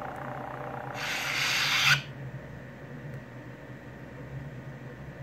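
FX lightsaber sound board playing an Ahsoka Tano sound font: a steady low electric hum, with a rising hiss about a second in that cuts off sharply a second later.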